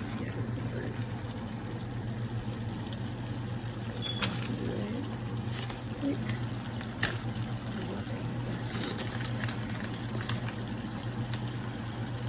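Philly steak meat and vegetables cooking in a pan, an even hiss over a steady low hum, with a few sharp utensil clicks against the pan.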